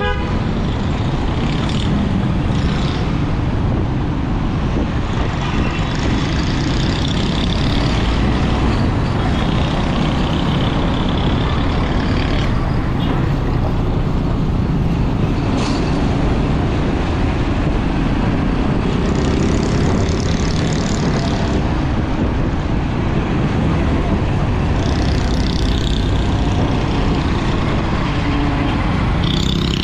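Motorcycle riding in city traffic, heard through a helmet-mounted microphone: a steady dense rush of engine, road and wind noise, with surrounding cars and trucks.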